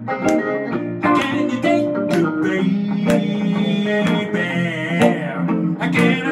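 Guitars playing Chicago blues, picked single notes over a chord backing.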